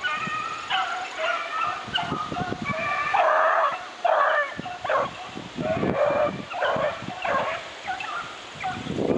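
A pack of rabbit hounds baying as they run a rabbit's track: a continuous stream of overlapping barks and yelps from several dogs at once.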